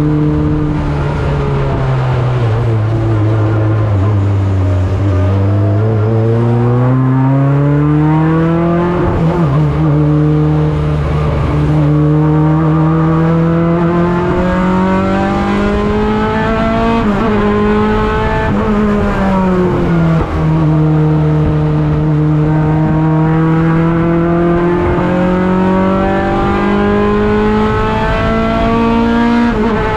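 Honda Integra (RSX) race car's engine heard from inside its stripped cockpit, running hard around a circuit. Its pitch climbs steadily under acceleration and drops sharply at gear changes, falling away where the car slows for corners.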